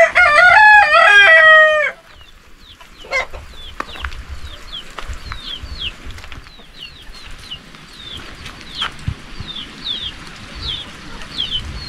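A rooster crows once, a loud cock-a-doodle-doo of about two seconds that rises in steps and ends in a long falling note. After that a small bird keeps up short, high, falling chirps, about one or two a second.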